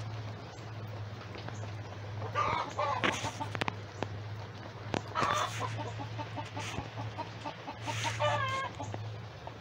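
Chickens clucking and calling: a few short calls, then a run of quick clucks in the middle and a longer wavering call near the end. A steady low hum runs underneath.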